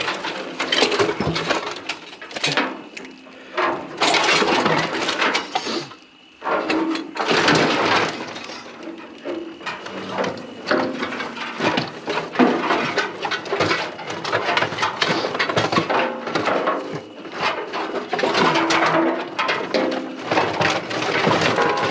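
Pieces of scrap metal clattering, clinking and knocking against each other as they are rummaged through and moved, with short pauses between bursts of handling.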